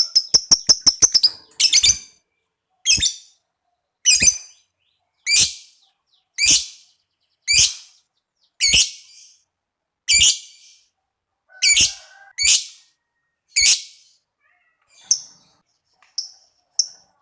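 Lovebird calling: a fast, high chattering trill (ngekek) that ends about a second in. It is followed by loud, shrill single calls about once a second, which give way to softer short chirps near the end.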